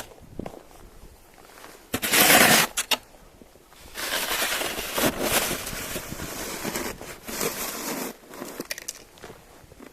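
Rustling, crinkling noise: a short loud burst about two seconds in, then a longer stretch of rustling that stops about eight seconds in.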